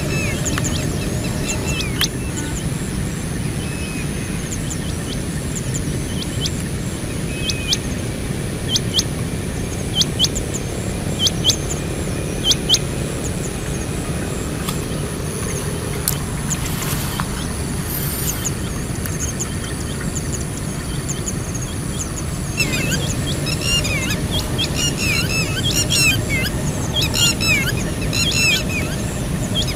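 Outdoor field ambience: birds chirping over a steady low rumble. Short sharp calls come in pairs between about seven and thirteen seconds in, and the chirping turns busy and continuous for the last quarter.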